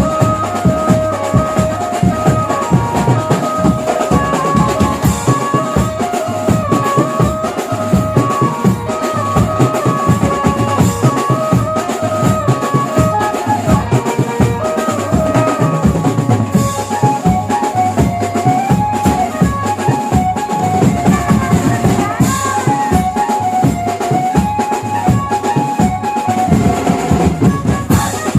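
Mumbai banjo-party band music: a stepping melody line over fast, dense drumming.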